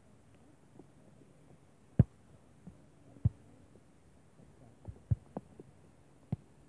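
Beach volleyball being played in a rally: a series of short, dull thuds as players' hands and arms strike the ball, about six hits, the loudest about two seconds in and a quick cluster around five seconds.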